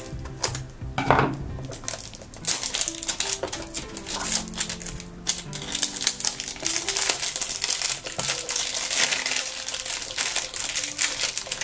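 Thin plastic wrapper crinkling as it is cut with scissors and peeled off a plastic blind-box toy case, in quick irregular crackles.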